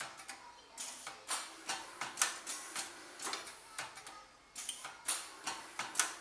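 Automatic pad printing machine running, its pneumatic print heads and rotary index table making a quick, uneven series of mechanical clicks and clacks, about two or three a second, with a brief lull about two-thirds of the way through.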